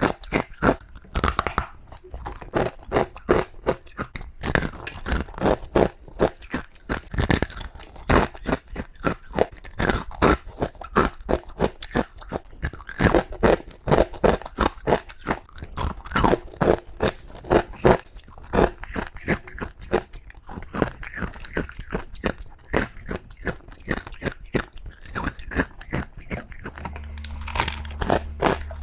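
A person biting and chewing ice close to the microphone: dense, rapid crunching, many cracks a second, with louder bites every second or so. A low steady hum comes in near the end.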